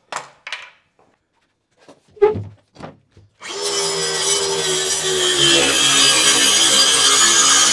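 A few handling knocks, then about three and a half seconds in an electric circular saw starts and cuts across a plywood sheet. Its motor pitch sags a little as the blade loads up in the cut.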